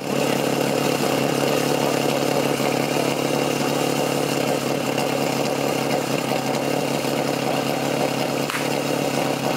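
Portable fire-sport pump's engine idling steadily on its base, waiting for the attack to start.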